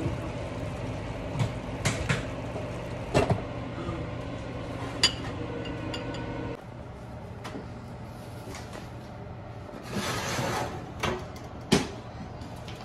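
Kitchen clatter: a silicone spatula knocking and scraping in a nonstick pan, with a few sharp clacks, over a steady fan hum that drops away about halfway through. Near the end come a short rush of noise and a couple of metal clunks as an oven is opened and a sheet pan is handled.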